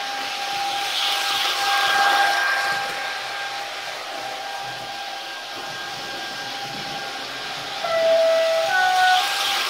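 Sound decoder in an H0 model Taurus electric locomotive playing its running sound through the model's small speaker: a steady electric whine with a hissing swell about two seconds in, then a louder horn-like run of stepped tones about eight seconds in.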